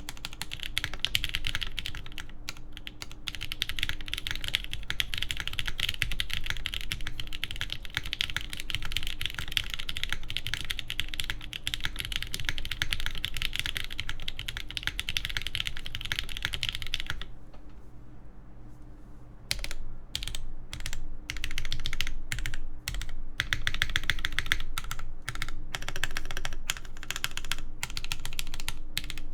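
Typing on a TGR Jane v2 ME mechanical keyboard with lubed JWK Banana Split linear switches on a carbon fiber half plate: a steady, fast stream of keystrokes that stops for about two seconds a little past halfway, then resumes in shorter runs broken by brief pauses.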